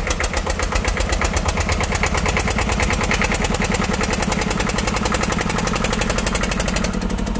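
Small electric gear motors of a homemade toy tractor running, with a rapid, even clatter of several ticks a second from the gearing.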